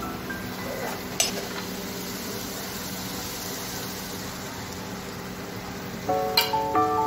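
Tomato-onion gravy sizzling in a kadhai, with one sharp knock about a second in; water poured in from a steel tumbler hits the hot gravy and sets it sizzling harder for a few seconds. Background music comes in near the end.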